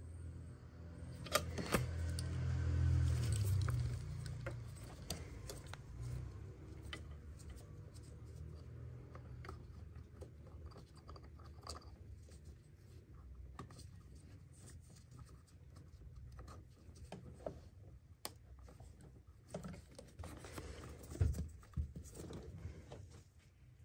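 Small clicks, light scrapes and cloth rustling from hands working around a car's fuel filter housing and its pipes in the engine bay. A low rumble runs for a couple of seconds near the start.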